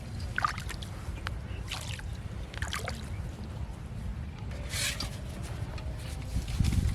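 Water splashing and trickling in short bursts a few times, over a steady low rumble.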